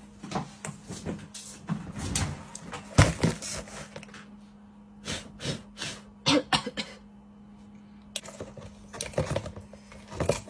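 Irregular clicks and knocks of small hard objects being handled, like tools and phone parts on a repair bench, over a steady low hum.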